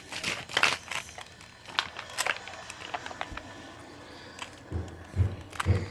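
Plastic Rubik's cube being twisted layer by layer while it is solved: quick, irregular clicks, with a few duller knocks near the end.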